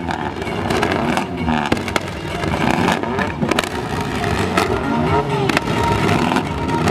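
Several modified car engines revving up and down through long upswept exhaust pipes, with sharp pops and cracks from the exhausts, the kind a flame-thrower exhaust kit makes.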